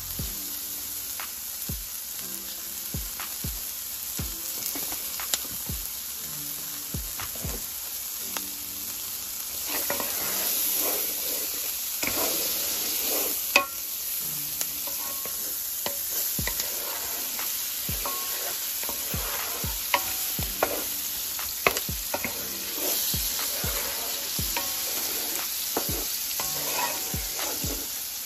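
Diced onions sizzling in melted butter in a hot skillet, stirred with a utensil that scrapes and taps against the pan. A sharper knock stands out a little past halfway.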